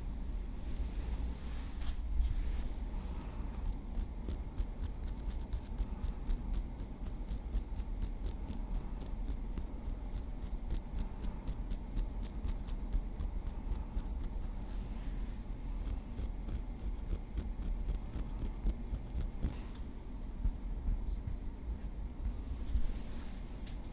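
Small wooden stick tapping lightly in a quick, even rhythm, with a short pause partway through and brief scratchy rubbing near the start and near the end.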